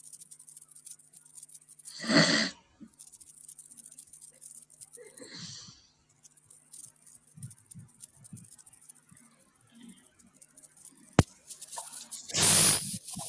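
Background noise of a remote call line: a steady low hum with faint crackling hiss, broken by a couple of short rustles, a sharp click about eleven seconds in, and a louder rustle near the end.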